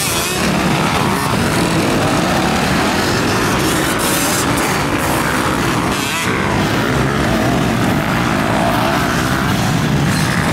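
Several MX2 motocross bikes racing, their engines revving up and down as the riders work the throttle through turns and jumps, overlapping into a continuous engine din.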